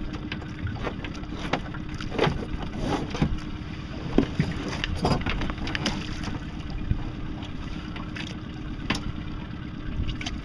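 Wind buffeting the microphone over a steady low hum aboard a small aluminum boat, with several knocks against the hull and a splash about five seconds in as a crab pot and its milk-jug buoy go over the side.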